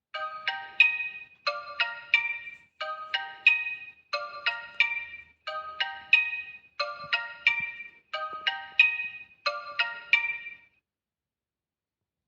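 Xiaomi 5 Plus mobile phone's alarm tone: a short phrase of struck, bell-like notes repeated eight times, about every 1.3 seconds, that stops abruptly near the end.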